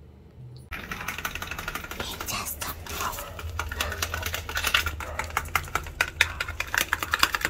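A steel spoon stirring and scraping in a small plastic cup, making a fast run of clicks and taps over a low steady hum.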